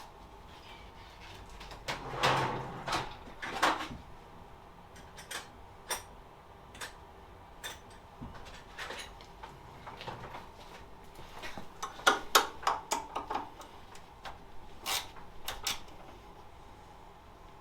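Intermittent clinks, knocks and clatter of hand tools and metal parts being handled, with louder bursts of rattling about two to four seconds in, around twelve seconds and again near fifteen seconds.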